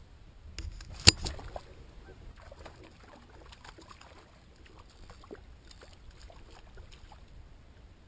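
Knocks and handling noises on a plastic sit-on-top fishing kayak and its tackle. One sharp knock about a second in is the loudest, with a few smaller clicks around it, followed by scattered light clicks and taps.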